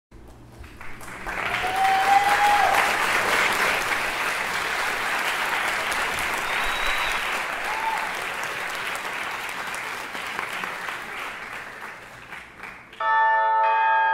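Audience applause that swells in the first two seconds and slowly dies away, with a few short whistles in it. Near the end the applause gives way abruptly to music.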